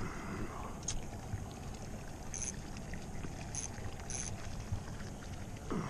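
Open-air ambience on a small fishing boat: a steady low hiss of wind and water, with a faint click about a second in and three short high chirps in the middle.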